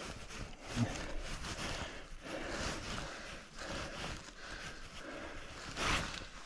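Mountain bike ridden over a rough forest trail: a shifting rush of tyre and rattle noise, with a knock about a second in and a louder patch near the end.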